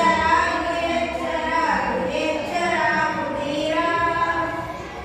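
Boys singing a Kannada patriotic song (desha bhakti geethe) unaccompanied, in long held notes that glide between pitches.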